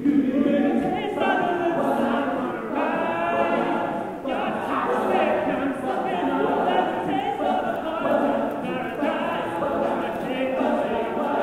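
All-male a cappella group singing unaccompanied: a lead singer over the rest of the group's backing vocals.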